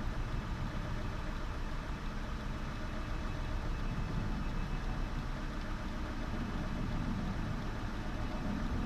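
Volvo V70's engine idling steadily, a low continuous rumble heard from inside the car.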